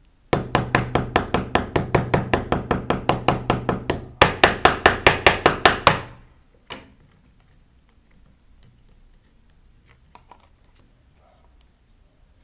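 Rapid, even strikes of a hard handheld object on a screen protector lying on a wooden board, about six a second for some six seconds with a brief break about four seconds in: a toughness test of the protector. One more single knock follows shortly after.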